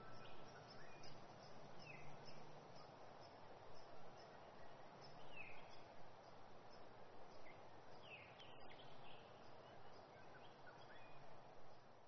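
Faint outdoor ambience: a steady soft hiss with a few short, falling bird chirps now and then.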